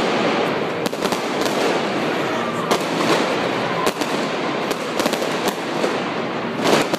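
Fireworks going off: a dense crackle of bursting shells with many sharp bangs, one of the loudest just before the end.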